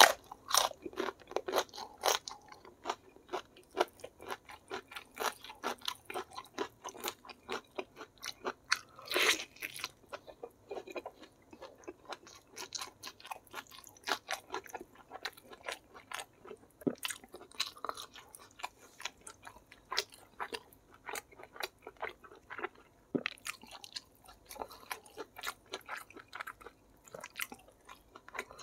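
Close-miked eating sounds: a person biting and chewing pieces of fried chicken in a wet, spicy rica-rica sauce, with a steady patter of moist mouth clicks and crunches. Louder bites come at the start and about nine seconds in.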